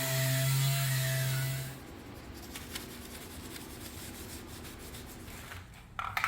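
Spray-painting equipment running: a steady hum with a strong air hiss, which cuts off about two seconds in. Then faint clicks and rubbing from handling the gun and gear, and a short knock at the very end.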